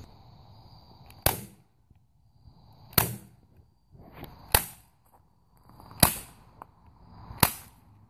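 Hand staple gun fired five times, a sharp snap about every second and a half, as staples are driven through the vinyl convertible top.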